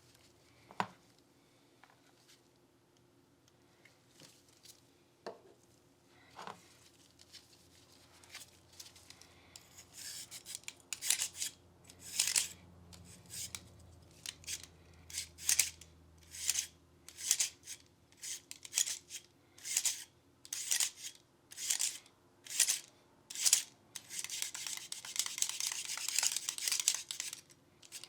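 A few light clicks, then a rhythmic run of scratchy scrubbing strokes on pistol parts being cleaned, a little more than one a second, giving way near the end to a steady hiss.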